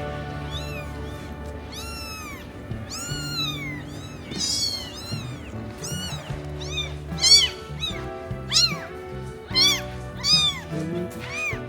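Cat meowing over and over in short calls that rise and fall in pitch, louder and coming faster from about seven seconds in. Background music plays underneath.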